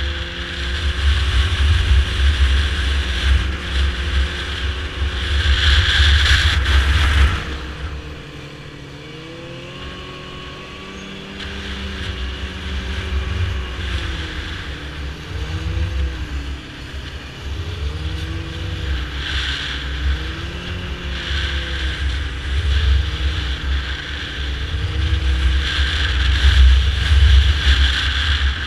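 Yamaha snowmobile engine running under way, its pitch rising and falling with the throttle; it eases off about seven seconds in and builds again a few seconds later.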